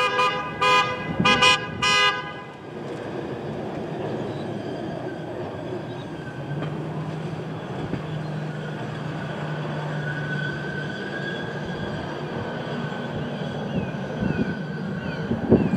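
A horn sounds a quick run of about five short toots over the first two seconds, followed by a steady low rumble of passing vehicles.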